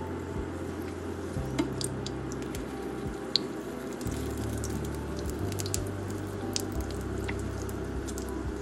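Oil sizzling and crackling under a folded tortilla wrap shallow-frying in a non-stick pan, with scattered sharp pops and light clicks as metal tongs turn the wrap.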